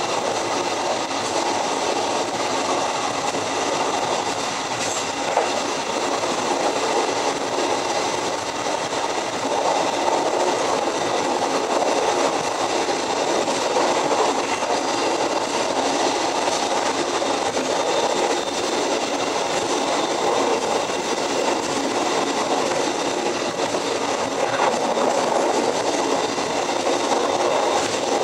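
Passenger train running at speed, heard from the rear of its last carriage: steady noise of the wheels running on the rails.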